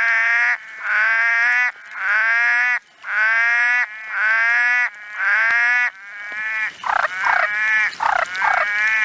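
A frog calling: a run of drawn-out, slightly falling notes about one a second, then shorter, quicker notes about three a second over the last few seconds.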